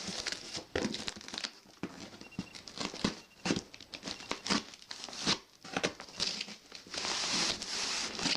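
Cardboard shipping box being torn open by hand, with packing wrap crinkling: irregular sharp crackles and rips throughout, turning into a denser steady rustle near the end.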